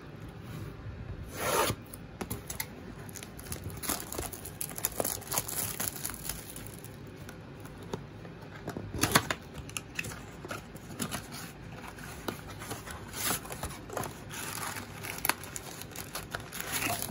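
Cardboard blaster box being handled and opened: cardboard rubbing, scraping and tearing, with scattered knocks and rustles. There is a louder scrape about a second and a half in and another about halfway through.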